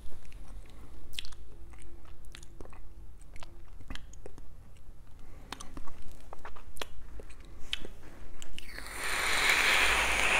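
Mouth clicks and lip smacks from tasting vapour, then, about nine seconds in, a steady hiss of a long drag drawn through an e-cigarette.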